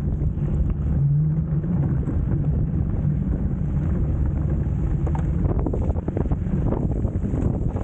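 Wind rumbling on the microphone of a moving electric scooter, mixed with its tyres rolling over a slushy, snowy road and a low steady hum.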